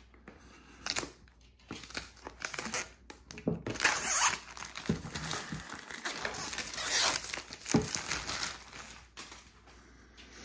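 Plastic shrink-wrap being slit with a knife and torn off a cardboard product box, crinkling and crackling in irregular bursts, loudest about four and seven seconds in.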